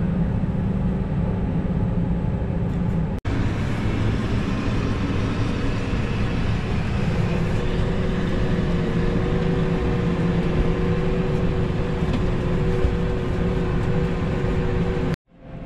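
Farm tractor's engine running steadily under load, heard from inside its cab as a continuous drone with a few steady tones. The sound drops out briefly twice, about three seconds in and near the end, and the hum changes pitch after the first break.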